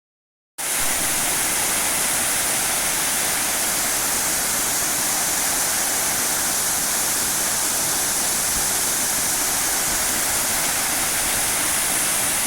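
Waterfall: a steady rush of falling water that starts abruptly about half a second in and stays even throughout.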